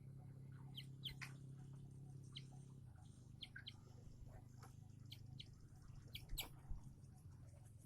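Faint, scattered short high chirps from a young eagle, a few louder ones about six seconds in, over a low steady hum.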